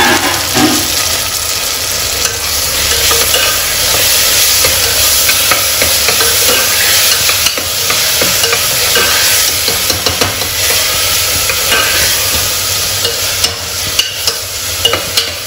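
Chopped tomatoes frying in hot oil with sautéed onions and ginger-garlic paste, sizzling steadily while being stirred in the pan, with short clicks of the stirring that come more often near the end.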